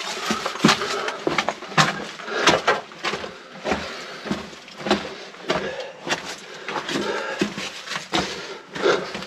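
Footsteps walking at a steady pace through an underground passage, about three steps every two seconds.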